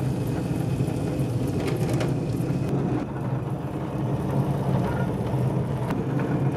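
Tabletop wet grinder running steadily, its stone roller churning a batter of soaked pearl millet, idli rice and urad dal. The sound is an even motor hum with a low drone.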